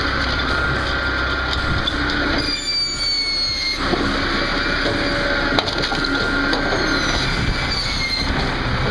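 Spaltfix S360 firewood processor running, cutting and splitting logs with a steady crunching of wood. There is a brief change in the machine's sound a few seconds in.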